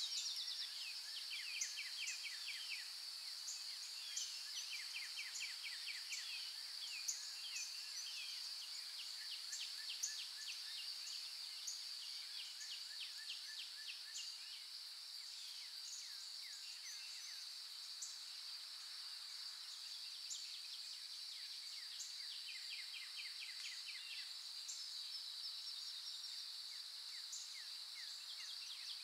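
Outdoor nature ambience: a steady high-pitched insect drone, with runs of quick bird chirps and trills coming and going over it.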